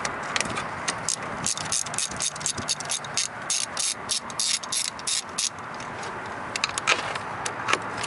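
Car battery cable terminal being worked off its post by hand: a dense run of sharp, irregular metallic clicks and rattles through the middle, and a few more near the end.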